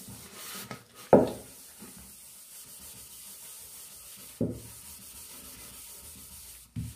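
An aluminium pot being scoured by hand, a steady rubbing scrape. A few knocks break it, the loudest about a second in.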